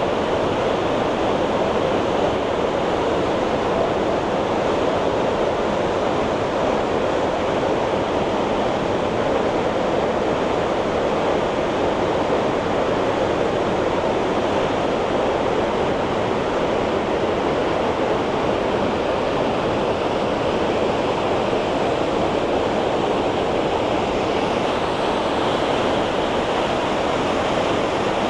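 Steady rushing water, a loud even roar that does not change.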